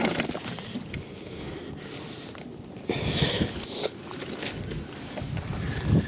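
Rustling and crackling of brambles and twigs as a person pushes through dense undergrowth, with scattered twig snaps and footfalls. It gets louder and busier about halfway through.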